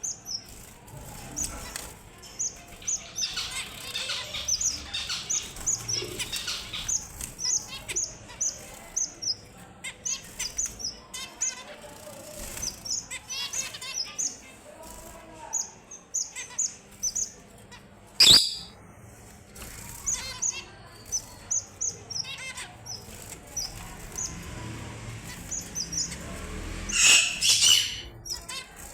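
Red avadavats (strawberry finches) chirping: many short, high calls repeated in quick runs. There is a single sharp click about two-thirds of the way through and a louder rustling burst near the end.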